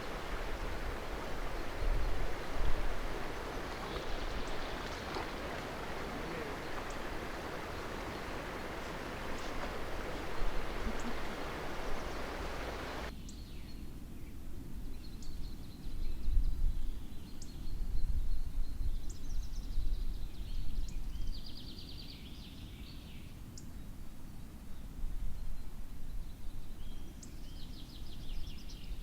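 Woodland ambience: a steady rushing noise cuts off suddenly about 13 seconds in, leaving a quieter background where small birds chirp and give rapid trills. A low rumble runs underneath.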